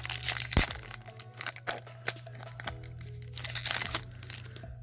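Foil wrapper of a Pokémon trading-card booster pack being torn open and crinkled in the hands, in quick crackling bursts, over faint background music.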